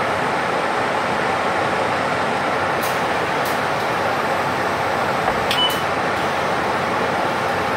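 Steady engine and air-conditioning noise inside a city bus cabin as the bus stands at a stop with its doors open. A few sharp clicks come about three seconds in, and a click with a brief high beep a little past the middle.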